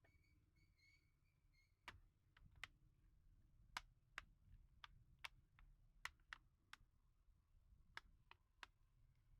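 Faint, irregular clicks and taps of small hard plastic and metal laptop parts being handled during disassembly, about fifteen in all, starting about two seconds in.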